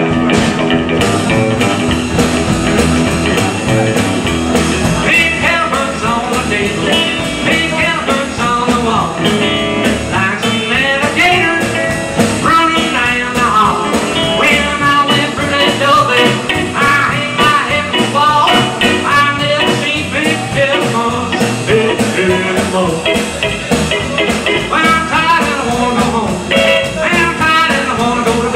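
A live band playing a rock-and-roll-style number on upright double bass, archtop acoustic guitar, electric guitar and drums.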